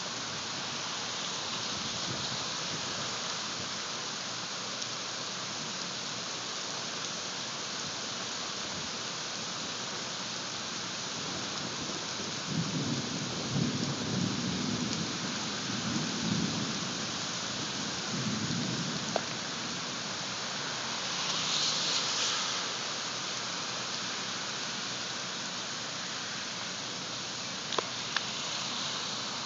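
Heavy rain falling steadily on pavement and foliage, a constant hiss. About halfway through, thunder rolls in several low rumbling swells, and a little later the rain hiss briefly surges louder.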